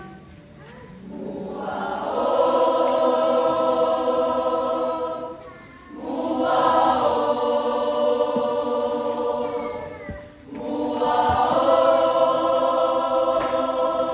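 Samoan school choir of boys and girls singing in parts without instruments: three long held chords, each swelling and then fading briefly for a breath before the next.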